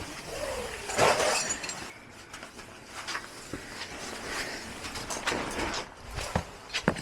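Metal climbing hardware clinking in short knocks and clicks, with scuffing and rustling of rope, gear and rock during a rappel.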